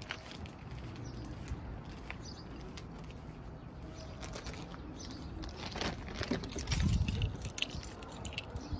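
Soft footsteps and scuffing over grass and paving, with scattered light knocks, louder for a moment about seven seconds in.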